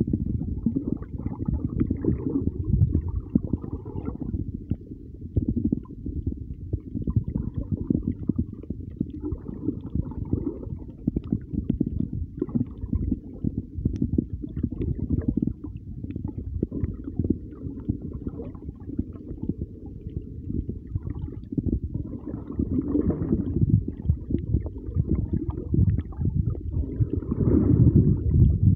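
Muffled underwater rumble of moving water picked up by a submerged camera, with faint crackles. It swells louder near the end.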